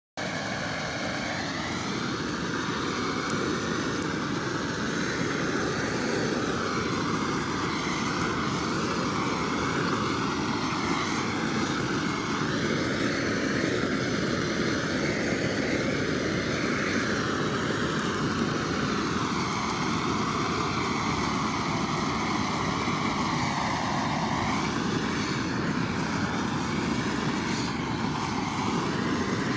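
Pressure washer spraying: a steady, loud hiss of the water jet whose tone drifts slowly up and down.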